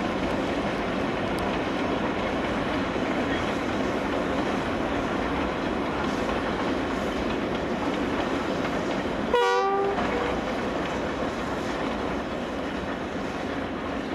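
A JS 2-8-2 steam locomotive working hard to start a heavy coal train, heard from afar as a steady rushing noise, with one short whistle toot about nine seconds in.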